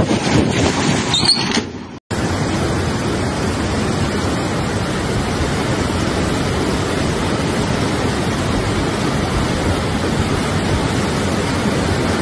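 Torrential rain and gusting wind buffeting the microphone, cut off abruptly after about two seconds. Then a steady, even rush of fast-flowing floodwater pouring through a street.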